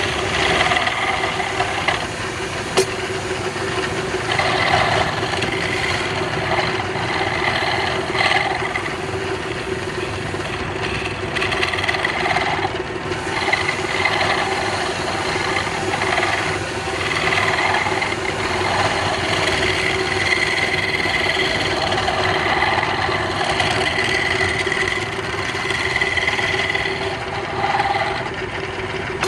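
Wood lathe running steadily with a constant motor hum, while a turning tool cuts the spinning wood in passes that come and go every second or two.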